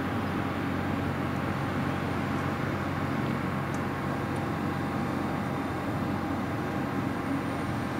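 Reims-Cessna F150K's four-cylinder Continental O-200 engine and two-blade propeller running steadily at low power as the light plane taxis.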